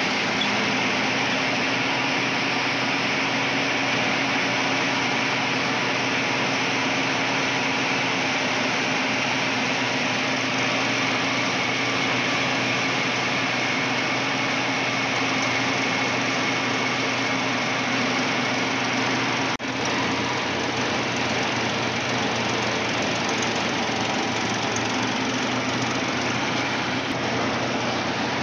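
Tractor-driven paddy thresher running steadily under load, its engine, threshing drum and blower fan making a continuous mechanical din as threshed rice grain streams out of the outlet chute. A brief drop in the sound about twenty seconds in.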